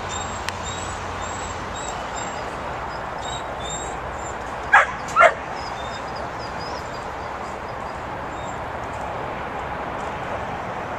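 Pit bull puppy giving two short, sharp barks about half a second apart, roughly five seconds in, over steady background noise.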